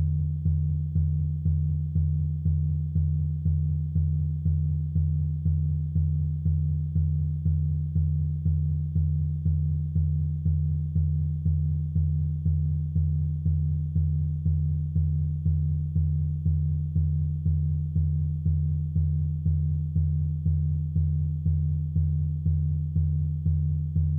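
Low electronic sine-like drone pulsing evenly about twice a second, with no melody or change.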